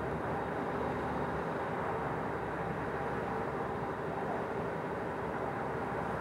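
Nova Bus LFS city bus heard from inside the passenger cabin: its drivetrain running under a steady hum, with road noise.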